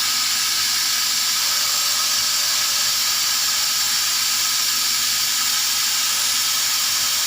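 CNC laser cutting machine running while it cuts 3 mm melamine plywood: a steady, even hiss with a faint high whine under it.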